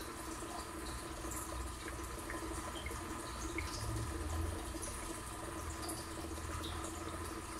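Aquarium water running and trickling steadily, with a low hum under it and scattered small bubble-like ticks.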